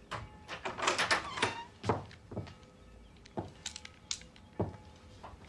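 A door lock and latch rattled and worked, with footsteps and knocks on wooden boards: a run of sharp clicks and knocks, densest about a second in and again a few seconds later.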